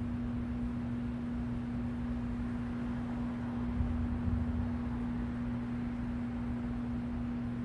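Steady hum, a single unwavering tone over a faint low rumble: the background noise of the room between spoken words.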